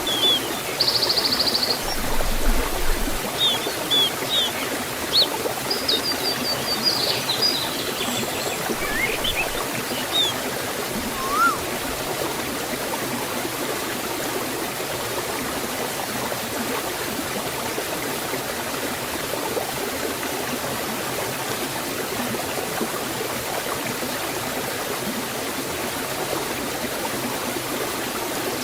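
Forest waterfall and stream water rushing steadily. A few short bird chirps and a quick trill sound over it in the first dozen seconds or so.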